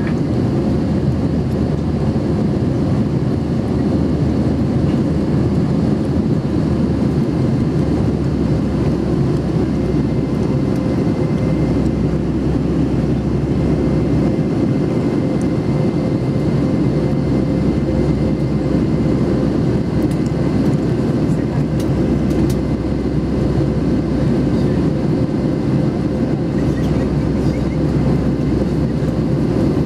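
Steady, low rush of jet engines and airflow inside the cabin of an Airbus A320-family airliner climbing after takeoff.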